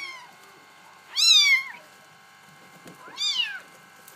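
Young Bengal kitten mewing: short, high-pitched cries that rise and then fall in pitch. One is just ending at the start, then two more follow about two seconds apart, the first of them the loudest.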